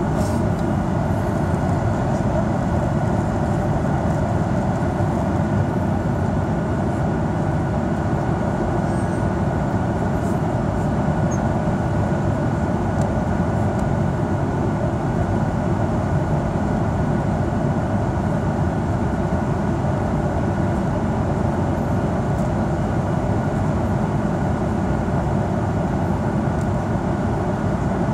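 Steady cabin noise inside a Boeing 737-800 in flight: the CFM56-7B turbofans and the airflow over the fuselage making an even rushing noise with a faint steady whine, the aircraft low on its descent toward landing.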